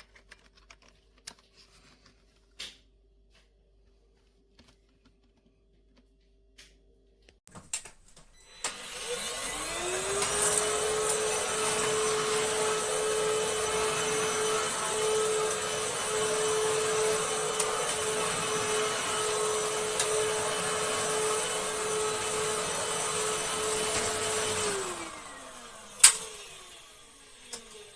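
Shark Stratos cordless stick vacuum's motor spinning up about nine seconds in with a rising whine, running steadily with an airy rush for about sixteen seconds, then winding down. A few light clicks come before it starts, and a single sharp click comes a moment after it stops.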